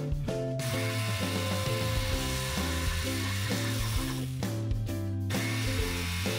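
Electric jigsaw cutting through a wooden board. It starts about half a second in, stops briefly past the middle and starts again, over background music.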